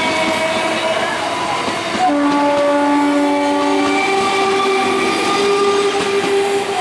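EMU local train running past: a loud, continuous rolling rumble overlaid by several steady tones, which step to new pitches about two seconds and again about four seconds in.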